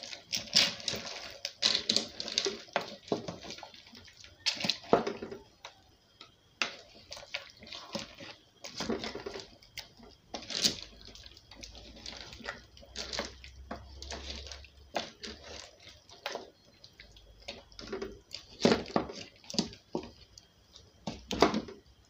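Wooden spatula stirring a liquid soup in a large metal pot: wet sloshing with irregular scrapes and knocks against the pot.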